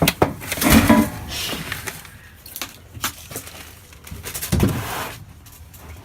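Hard objects clinking and clattering irregularly as things are moved about while rummaging, with the loudest knocks about a second in and again near the middle.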